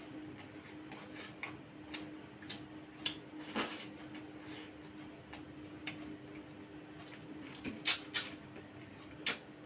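A person eating curry and rice with his fingers: scattered small wet clicks and smacks from the food and the mouth, with a few louder mouth clicks about eight and nine seconds in, over a faint steady hum.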